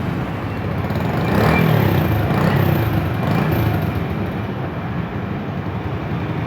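Bajaj CT100 motorcycle's single-cylinder four-stroke engine running after an overhaul and reassembly, with a swell in engine sound about a second and a half in.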